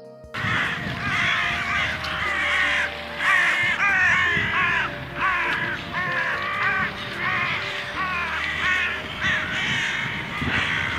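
Crows cawing, a long series of harsh calls, one or two a second, some overlapping.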